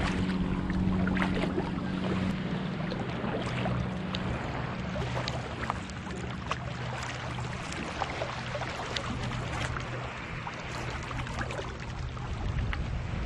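Sea kayak being paddled on calm water: water splashing and trickling around the paddle blades and hull, with many small splashes and drips. A low steady hum runs underneath for the first part and fades out.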